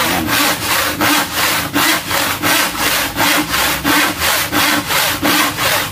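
Hand saw cutting through a wooden board with steady back-and-forth strokes, about three rasps a second. The strokes are long and even, using most of the blade's length.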